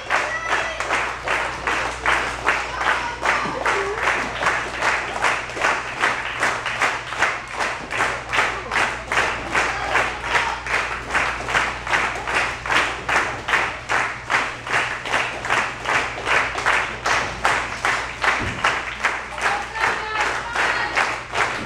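Crowd of spectators clapping in unison to a steady beat of about three claps a second, over a low steady hum.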